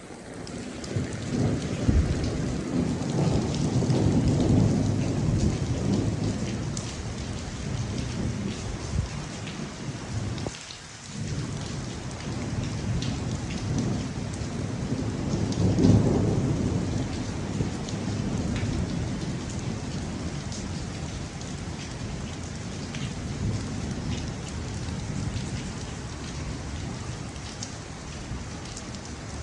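Heavy rain pouring down during a thunderstorm, with many drops hitting nearby. Rolling thunder rumbles twice: the first swells over several seconds near the start, and the second peaks about halfway through.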